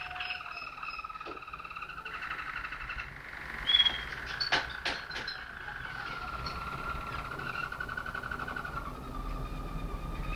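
Malinois (Waterslager) song canary singing long, low rolling trills that pulse rapidly. A sharp high note and two sharp clicks come about four to five seconds in.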